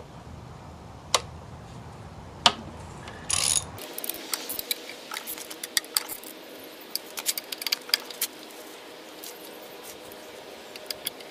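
Ratchet wrench clicking as 13 mm bolts are loosened from the aluminium inverter cover of a 2013 Nissan Leaf drive unit. There are a few single clicks at first, then from about four seconds in a fast, uneven run of ratchet clicks as the bolts are spun out.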